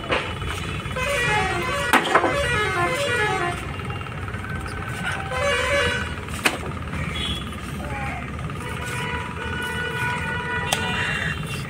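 Street background: a steady low traffic rumble with vehicle horns tooting, including a run of stepped, falling notes in the first few seconds. There are a few sharp knocks.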